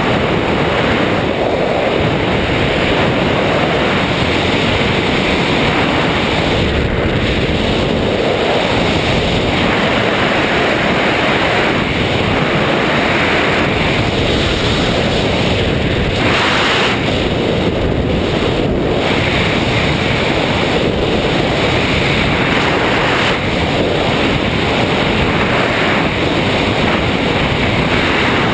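Wind rushing over the camera's microphone as the skydiver flies under an open parachute: a steady, loud rush that swells and eases slightly.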